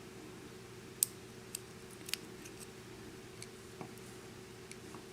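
Faint, sharp metallic clicks and ticks, scattered and irregular, from small lock pins and parts being handled while the pins are taken out of a Schlage-keyway pin-tumbler lock; the clearest clicks come about a second in and a little after two seconds, over a steady low hum.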